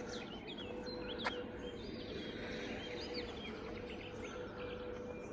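Several small birds singing and chirping outdoors, with many short whistled notes rising and falling, over a faint steady hum.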